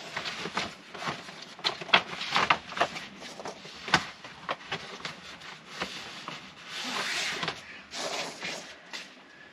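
Interlocking foam floor tiles and a poly tarp being pushed, slid and pressed into place on an SUV's cargo floor: irregular rubbing and scraping with a few sharp knocks, the sharpest about two and four seconds in, and a longer swish near the end.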